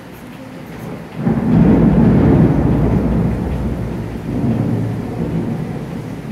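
Thunder: a deep rumble breaks out about a second in, swells again around four and a half seconds in, and slowly dies away.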